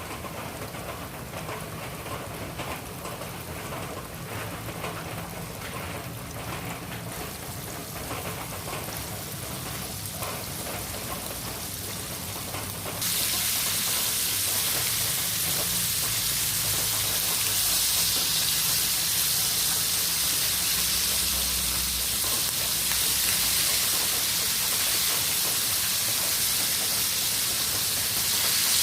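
Hot oil sizzling steadily in a pan as food fries, with a few light clicks in the first half. About halfway through the sizzle jumps suddenly louder and stays loud.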